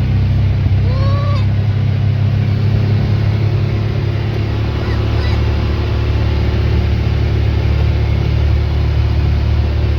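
Vehicle engine and road noise running steadily as a low drone, with a short high rising-and-falling whine about a second in.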